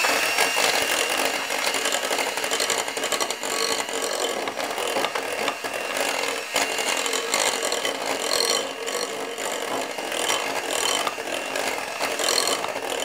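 Electric hand mixer running steadily, its beaters churning thick cake batter and ticking against the glass bowl; the motor cuts off near the end.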